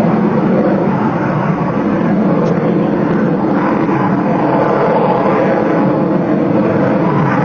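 Sukhoi fighter jet's engines running, a loud, steady rumbling noise with gentle swells, as the jet flies a slow, nose-high aerobatic manoeuvre.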